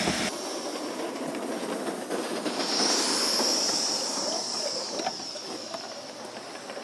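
Gauge 3 model train running on the garden railway track, its wheels clattering and clicking over the rails. A high hiss swells for a couple of seconds near the middle.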